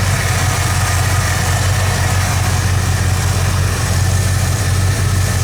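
Carbureted engine of a 1985 Ford F-150 idling steadily.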